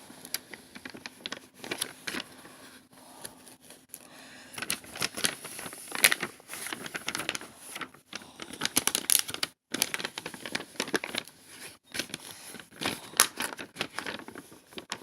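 Plastic packaging and paper crinkling and rustling as a diamond painting kit is handled and unwrapped, with many short crackles and clicks.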